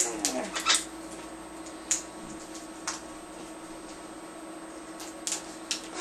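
A few short, sharp clicks and taps at irregular intervals, a cluster in the first second and then single ones, over a steady faint hum.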